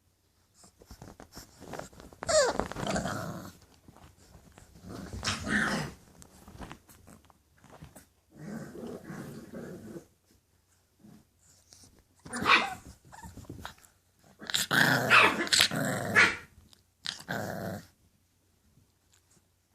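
English Bulldog puppies growling in short bouts, about six times with pauses between.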